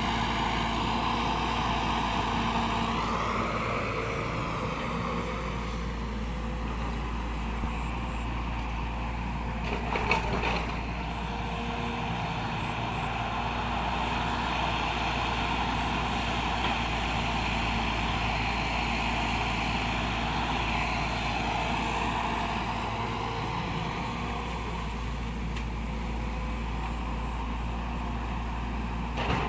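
Excavator's diesel engine running under load, its note shifting up and down a few times as it works, with a short clatter about ten seconds in.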